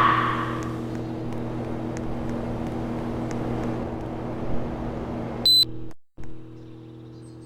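Electrolux split air conditioner running with a steady low hum, its airflow hiss dying away in the first second. About five and a half seconds in, a short high beep sounds, the kind the unit gives when it accepts a remote command. Just after it the sound cuts out briefly, and then the hum goes on more quietly.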